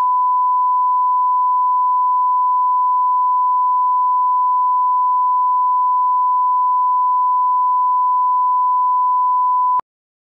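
Broadcast line-up reference tone played with colour bars: one steady, pure, high beep that cuts off abruptly near the end.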